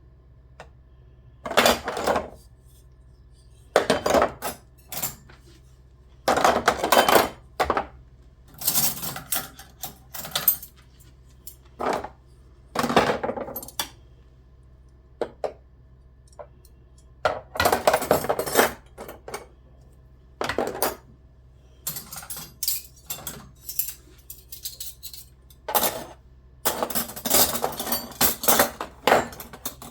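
Dishes, pots and cutlery clinking and clattering in irregular bursts as kitchen items are handled and set down, with short quiet gaps between.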